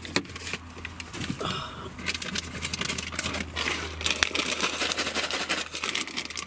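Plastic packet crinkling and crackling as it is handled and opened, in a rapid irregular run of sharp crackles.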